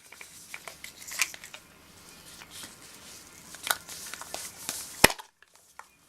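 Hands handling a large plastic surprise egg: faint scattered clicks and rustling, then one sharp plastic snap about five seconds in as the egg's two halves come apart.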